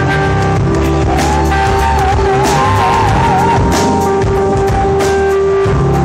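Live band music from a drum kit, bass guitar and keyboard, played loud with a steady beat. About a second in, a long note wavers up and down for two or three seconds.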